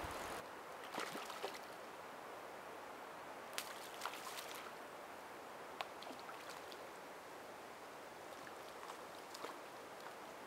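Hooked fish splashing and thrashing at the surface of a calm stream in several short, sudden bursts while it is played on a fly rod, over a steady hiss of water.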